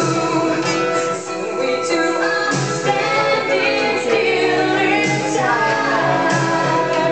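A song with singing plays, to which two people are dancing.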